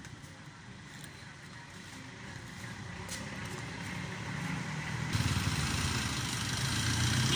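A motor vehicle's engine running, growing steadily louder and loudest over the last couple of seconds.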